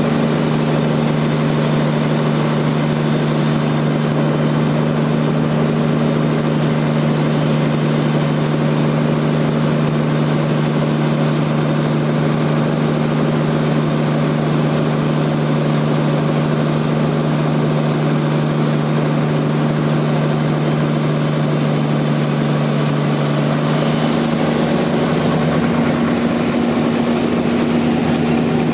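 Sawmill machinery running steadily with a loud, even engine-like hum; its tone shifts slightly near the end.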